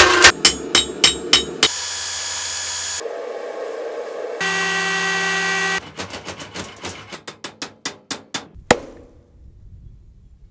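Workshop sounds in quick cuts: a series of hammer strikes, a few seconds of a power tool running, then a quickening run of hammer blows that ends in one loud strike before the sound falls away.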